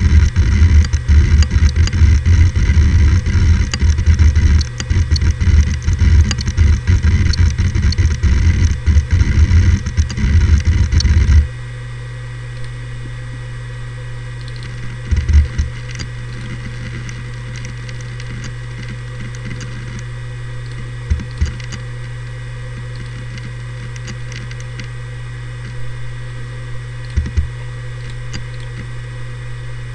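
Seagate Barracuda ES ST3250820NS 7200 rpm hard drive seeking at random: loud, rapid, dense clicking and chatter of the head actuator, an odd clicking that is normal for these drives. About eleven seconds in it cuts to idle: a steady spindle hum with an occasional single seek click.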